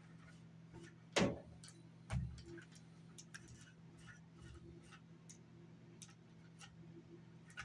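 Small scattered plastic clicks and ticks as a headset is handled and wiped with a cloth, with a sharper knock about a second in and a short dull thump about two seconds in. A faint steady low hum runs underneath.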